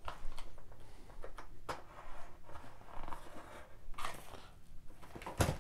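Utility knife cutting a clear plastic blister pack away from its cardboard card: small clicks and plastic crackling, a longer scratchy cut about four seconds in, and a louder knock near the end.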